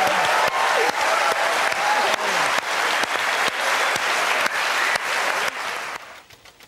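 Studio audience applauding, dense clapping that dies away sharply about six seconds in, leaving a few scattered claps.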